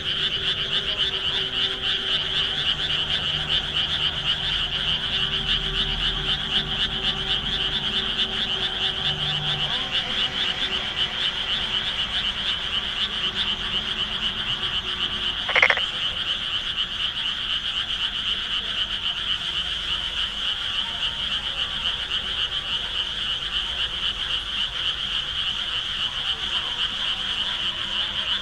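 Dense chorus of many frogs calling at once, a steady high-pitched pulsing mass of calls. About halfway through, one short, sharp, louder sound stands out above the chorus.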